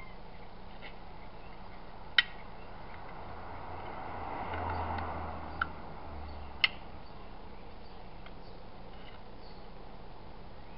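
Sharp metallic clicks as pieces of steel tubing (the pantograph's letter holder) are handled and knocked against the metal frame: two loud ones, about two seconds in and again near seven seconds, with a lighter tap between, over a steady low background noise.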